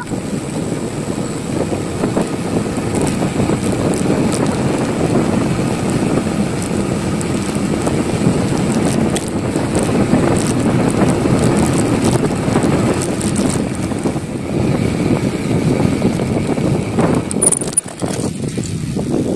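Steady rushing road noise while riding a bicycle: wind over the microphone mixed with the rumble of the tyres, rising and falling a little, with a brief dip near the end.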